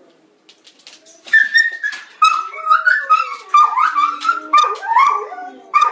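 Vizsla giving a rapid run of short, high-pitched whining yelps, with pitch bending up and down, starting about a second in. She is excited by wolves howling on a computer screen.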